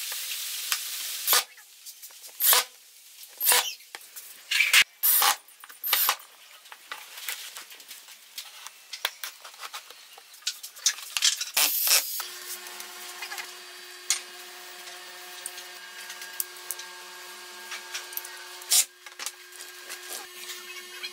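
Wood pieces being handled and set down on a wooden workbench: a scraping rush at the start, then scattered knocks and clicks of wood on wood. About halfway through a faint steady hum with a few held tones comes in and runs on under the handling.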